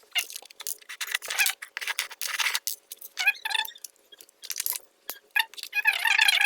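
A string of short, sharp clicks and snips from working the new wire and plug parts of an extension lead by hand, with high-pitched music coming in near the end.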